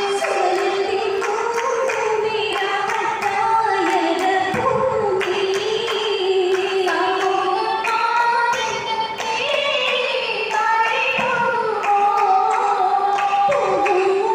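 Girls' chorus singing an Oppana song (Mappila pattu) in unison, with the dancers' hand claps keeping the beat.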